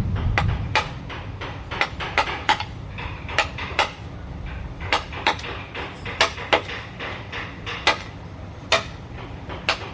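Hammer blows striking unevenly, about two a second, over a low steady hum.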